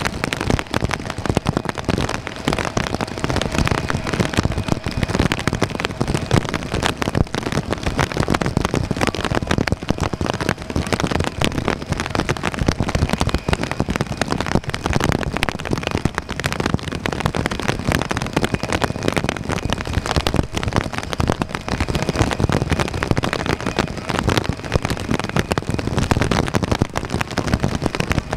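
Heavy rain pattering on a surface close to the microphone, a dense steady crackle. Underneath, the taxiing Boeing 777-300's jet engines give a faint steady whine.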